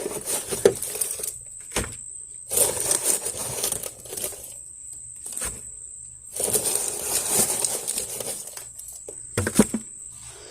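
Wet leaves and debris being scooped out of a clogged house gutter by hand, crinkling and scraping in several bursts, with a few sharp knocks between them.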